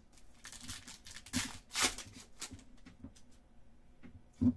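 Trading cards and a plastic pack wrapper being handled, in short crinkling rustles, the loudest about a second and a half to two seconds in, with a sharp tap near the end.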